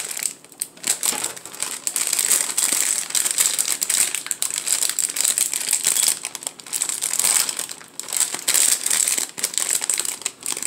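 Plastic bag of graham cracker crumbs crinkling in irregular bursts as hands pick and pull at its stubborn top to get it open.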